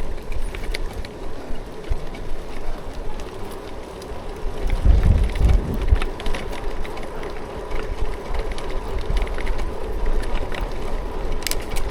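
Wind buffeting the microphone and steady road noise while riding, with a faint steady whine throughout. About five seconds in there is a stronger gust of low rumble.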